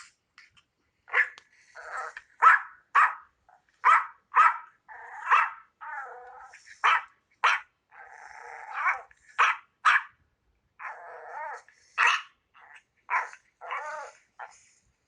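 A dog barking repeatedly in short, high-pitched barks, about two a second, with a few longer, rougher growl-like stretches between them.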